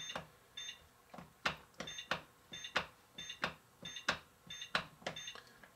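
Easy-Bake Real Meal oven's timer button being pressed over and over, each press a click and a short high electronic beep, about every two-thirds of a second. This is the bake timer being stepped up to 10 minutes.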